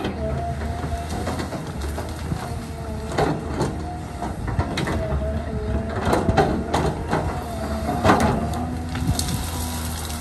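Cat excavator running with a steady engine hum and a wavering whine while clearing brush, with a string of sharp cracks and snaps as branches break, the loudest about eight seconds in.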